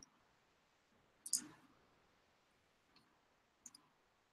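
A few faint computer mouse clicks over near silence: one about a second in, and two smaller ones near the end.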